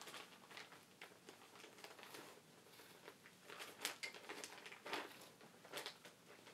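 A clear plastic bag crinkling and rustling as it is handled, in short irregular bursts, the loudest just before four and around five seconds in.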